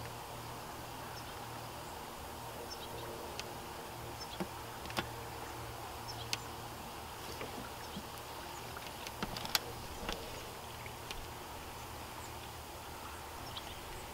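Rod and reel being worked while playing in a hooked fish: scattered sharp clicks and ticks over a steady low hum.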